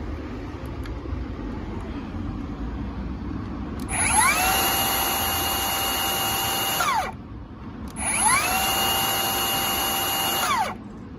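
HiKOKI C3606DRB 36V cordless slide miter saw with a 165 mm blade, run twice with no load for about three seconds each. Each run is a whine that rises quickly to a steady pitch, then falls away as the blade spins down.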